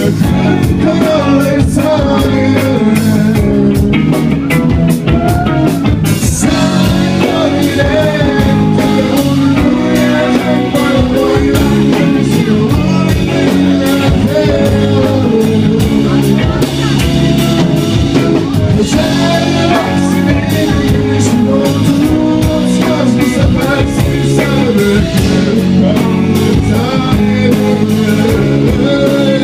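A live rock song: two male singers sing together into microphones over a band with drums, loud and continuous.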